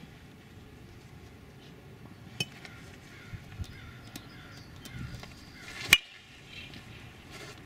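Two sharp impacts of a baseball, the first about two and a half seconds in and a louder, ringing one near six seconds, with a few fainter ticks between.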